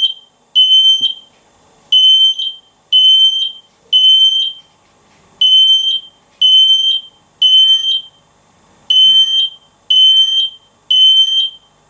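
Firehawk smoke alarm sounding in test mode: loud, high-pitched half-second beeps in groups of three, one second apart, with a short pause between groups. This is the standard three-beep evacuation pattern.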